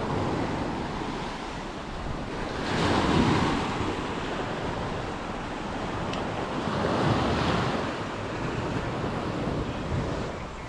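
Sea waves breaking on a beach, swelling up twice about four seconds apart, with wind on the microphone.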